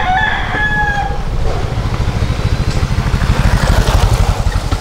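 A rooster crows, its call trailing off about a second in. Then a motorcycle engine swells as it passes close, loudest near four seconds in.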